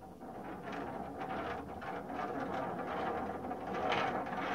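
A marble rolling down a wooden spiral ramp: a continuous clattering rumble that grows louder as the marble picks up speed. It sounds like an old wooden roller coaster.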